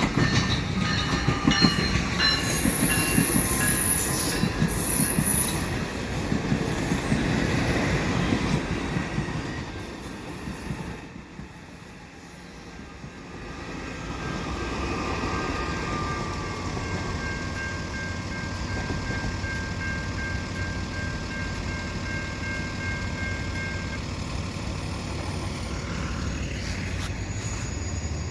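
Exo MR90 electric commuter train arriving at a terminus. For the first ten seconds or so its wheels knock over the rail joints and a high wheel squeal sounds as it comes in. Then it goes quieter, with a steady high whine that stops a few seconds before the end.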